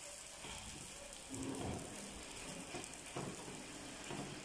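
Msemen dough sizzling faintly in oil on a hot flat griddle, with a couple of brief soft sounds as oily hands press and flatten the dough.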